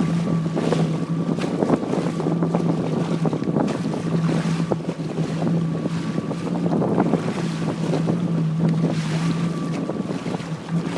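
Jet ski engine idling with a steady low hum and a faint thin whine above it, under wind buffeting the microphone and water lapping.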